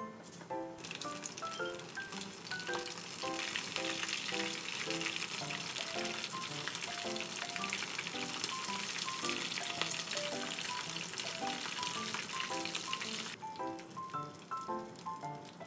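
Octopus karaage pieces deep-frying in a frying pan of hot oil, a dense sizzle full of sharp pops as the oil spatters hard. The sizzling starts about a second in and stops abruptly near the end.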